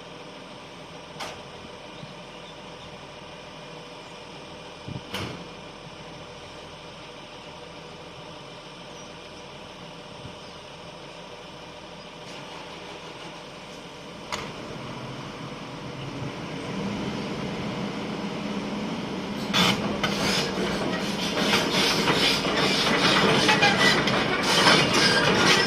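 Volvo hydraulic excavator running at idle with a few sharp clicks, then the engine comes up under load. Over the last few seconds a rapid metallic clanking and squealing builds and grows louder.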